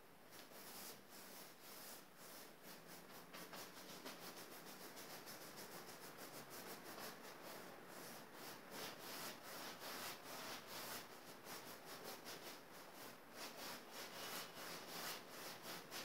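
Paintbrush scrubbing back and forth across a canvas in quick strokes as it blends wet paint, the strokes growing louder about halfway through.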